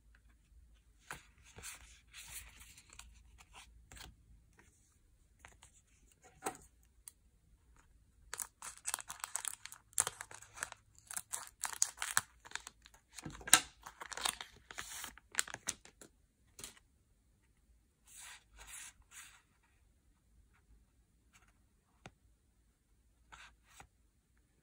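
Yu-Gi-Oh! booster pack foil wrappers being crinkled and torn open in several bouts, busiest through the middle, with quiet gaps between.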